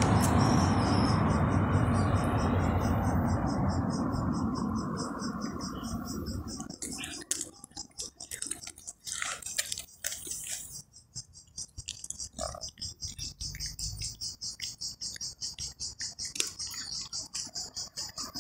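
A passing vehicle fading away over the first few seconds, then a cat chewing fish up close, with irregular wet clicks and crunches. Throughout, a fast, even high-pitched chirping goes on.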